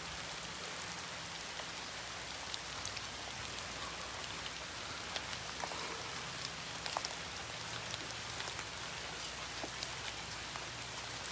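Steady rain falling, with scattered drops ticking close by.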